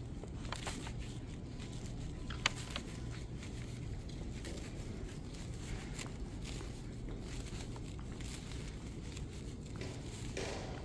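Light footsteps on a polished stone-tile floor over a steady low room hum, with one sharp click about two and a half seconds in.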